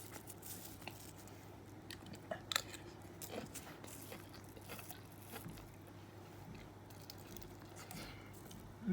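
A person eating fried rice with chicken: faint chewing and biting, with scattered small clicks, the sharpest about two and a half seconds in.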